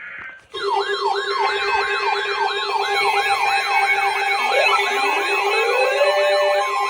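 Electronic siren yelping, sweeping up and down in pitch about three times a second over a steady tone. It starts about half a second in, and a second siren joins, rising in pitch, about four and a half seconds in.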